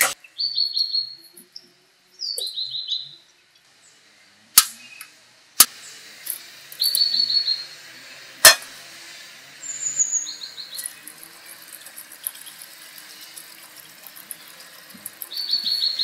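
A songbird singing short, quick chirping phrases that repeat every two to three seconds. Four sharp clicks cut in, the loudest a little past the middle.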